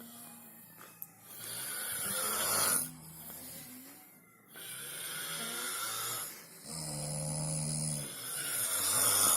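People snoring in their sleep: about four long snores in a row, separated by short quiet gaps, one of them a low, steady buzzing snore.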